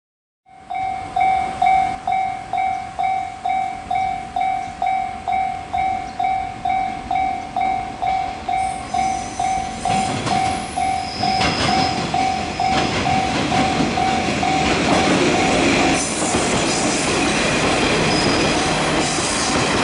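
A level-crossing bell rings in a steady pulse of about two strikes a second and stops about three-quarters of the way through. Over it, a JR Kyushu KiHa 140 diesel railcar approaches: from about halfway in, its engine and wheels grow louder, with clicks over rail joints and points.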